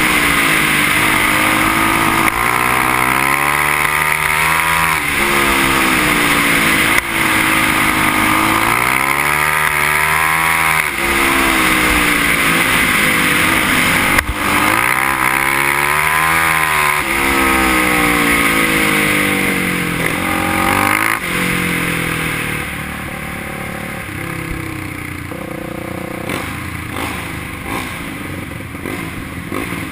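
Onboard racing quad (ATV) engine revving up along the straights and dropping back through the turns, in cycles about every six seconds. About 21 seconds in it eases off to lower, quieter running.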